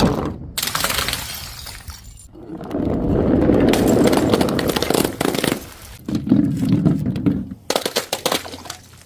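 Glass bottles shattering and crunching: several separate breaks cut one after another, with a longer crunching stretch of about three seconds in the middle.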